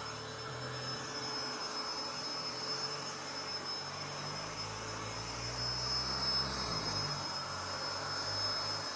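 Cordless electric leaf blower with a brushless motor running steadily, a rushing blast of air under a high, steady motor whine.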